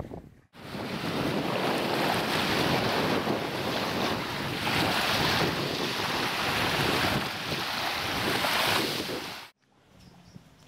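Small sea waves washing onto a sandy beach, a steady rushing with wind buffeting the microphone. It stops abruptly near the end.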